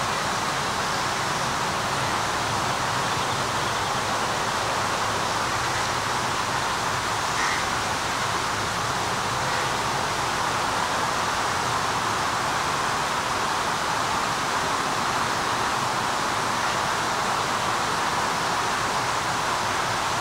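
Water falling steadily down a stepped stone cascade and spilling over a low stone weir: an even, unbroken rush.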